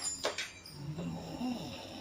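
A sleeping person snoring, with a low drawn-out snore through the second half. Two short clicks come just before it, near the start.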